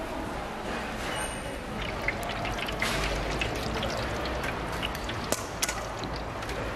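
Hot oil in a street-stall deep fryer, with a scatter of small crackles and drips as a mesh strainer skims through it.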